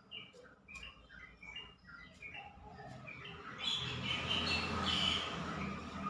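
Yellow-vented bulbul (trucukan) calling: a run of short chirping notes, scattered at first, then denser and louder about two-thirds of the way in, with a low hum coming up underneath.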